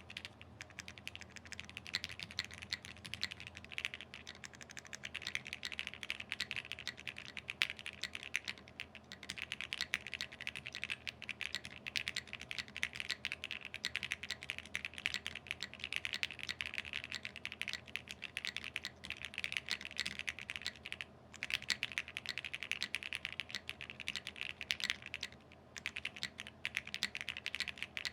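Typing test on an Acrylic60 60% custom mechanical keyboard with a CNC acrylic case and foam fitted inside: a continuous run of fast keystrokes clacking, broken by a few short pauses.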